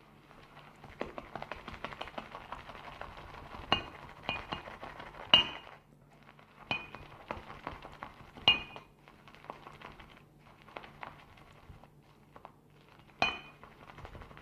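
Shaving brush whisking lather in a ceramic shaving scuttle: a rapid wet swishing and scratching with about six sharp, briefly ringing clinks against the ceramic bowl, the loudest a little over five seconds in. The lather is being built up after a few drops of water have been added.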